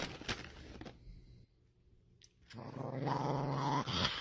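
A small chihuahua-type dog growling low and steadily, starting a little past halfway through.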